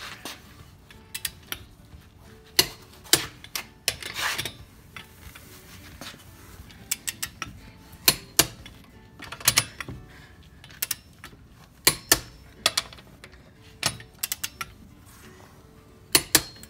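Irregular sharp metallic clicks and clinks of a socket and ratchet wrench on wheel lug nuts as the nuts are spun on and snugged down, some with a brief ring.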